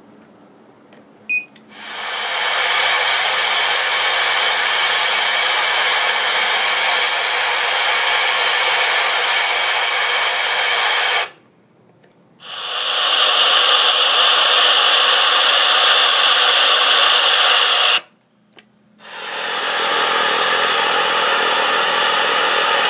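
Compressed air hissing steadily from an MSA Firehawk SCBA regulator in free flow, in three long runs. Each run stops abruptly when the flow shutoff button is pressed, and starts again about a second later, building up over half a second. A single click comes just before the first run.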